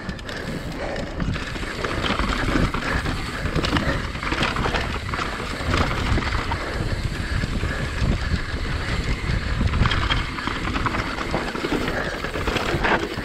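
Mountain bike riding over rough trail: tyres rumbling over dirt and rocks, with constant rattling and many small knocks from the bike, and wind buffeting the microphone.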